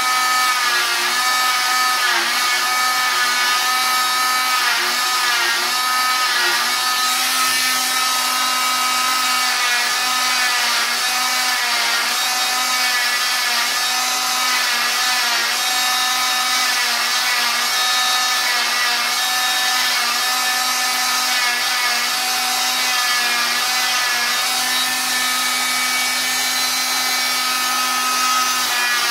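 Electric oscillating cast saw running with a steady high whine, its pitch dipping briefly again and again as the blade is pressed into a fiberglass cast and eased off.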